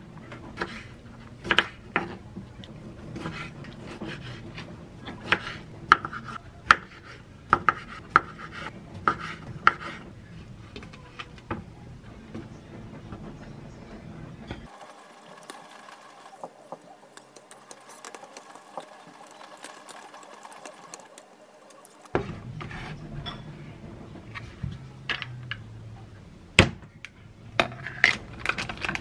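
Close-up kitchen handling sounds: salad greens lifted out of a plastic salad-spinner basket and set on a ceramic plate with cherry tomatoes and grapes. The greens rustle among many light taps and knocks of plastic and dishware, with a quieter stretch midway.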